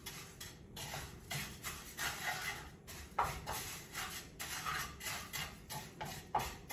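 Wooden spatula stirring raw rice in a frying pan as it toasts golden: repeated scraping strokes of wood and grains against the pan.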